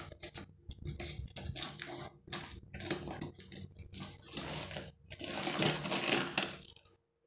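Scissors snipping through a taped brown-paper parcel, with the paper and packing tape crackling and tearing as the wrapping is pulled open. The sound stops abruptly near the end.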